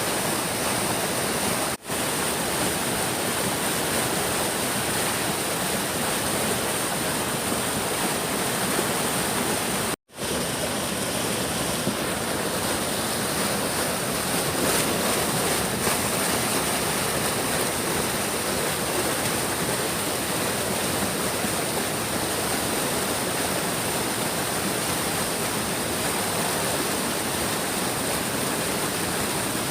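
A big stream rushing steadily, a dense even rush of water, cutting out very briefly twice, about two seconds in and again about ten seconds in.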